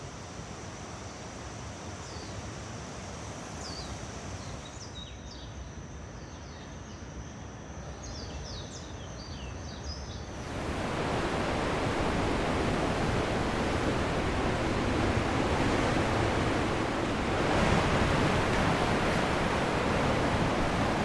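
Rainforest ambience: birds chirping over a soft hiss and a steady high tone. About ten seconds in, it cuts to louder rushing water, which swells further near the end.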